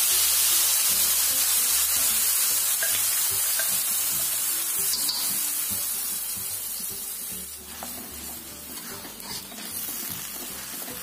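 Wet blended chili paste sizzling and spitting in hot oil in a steel wok, loud at first and dying down steadily over the seconds. Near the end a spatula stirs and scrapes the paste.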